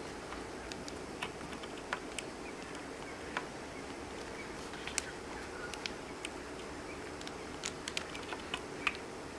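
Scattered light plastic clicks and taps of a RAM stick being handled and pressed against a motherboard's memory slot, irregular and a few seconds apart, over a steady low hum.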